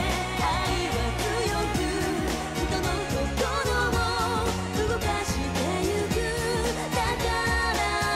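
A song with a solo singer holding long notes with vibrato over steady chords and bass.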